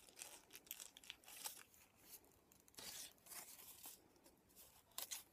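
Faint rustling and crinkling of paper petals being handled, squeezed onto the flower head and threaded onto a wire, in short scattered bursts.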